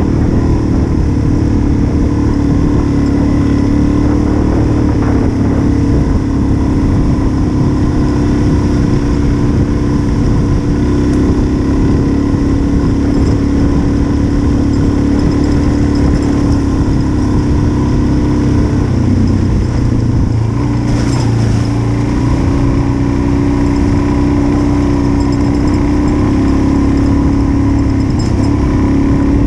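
Single-cylinder dual-sport motorcycle engine running at steady cruising speed, heard from on board with heavy wind rumble on the microphone. About twenty seconds in the engine note drops briefly as the rider eases off, then settles at a new pitch.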